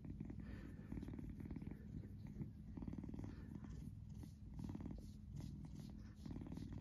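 Long-haired brown tabby cat purring while being stroked on the chin and head, a fast, steady rumble that runs in phrases with short dips between them as it breathes.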